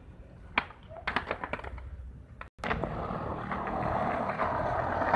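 Skateboard wheels rolling on asphalt: a rough, even rumble that starts about halfway through and grows steadily louder. Before it, a few faint sharp clicks.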